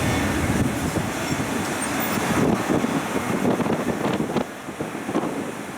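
Ride noise from aboard a small road tourist train on the move: engine and road rumble with scattered knocks and rattles, easing off slightly near the end.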